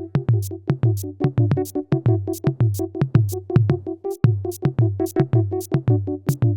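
Electronic music made in GarageBand: a drum-machine beat with steady hi-hat-like ticks and bass thumps under repeating synthesizer notes.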